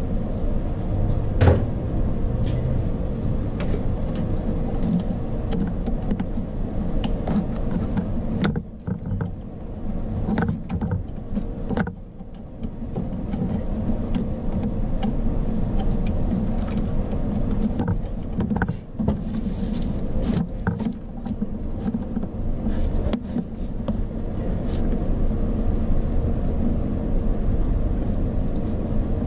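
Steady low rumble with a constant hum, over which light metallic clicks and knocks come now and then as hand tools work on the starter's cable terminal under the hood.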